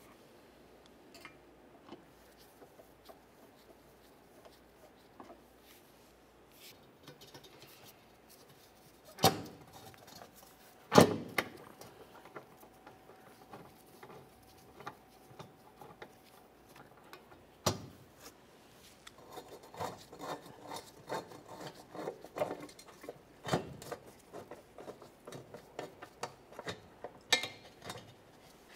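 Steel mounting bolts and hand tools being handled while the bolts are started by hand into a car's crossmember: a few sharp metallic clicks and knocks, the loudest about eleven seconds in, then a run of small quick ticks in the last third.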